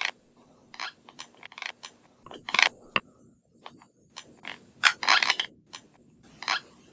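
Teeth grinding during sleep (sleep bruxism): a series of irregular short grating scrapes and clicks of teeth rubbing against each other, loudest about two and a half and five seconds in.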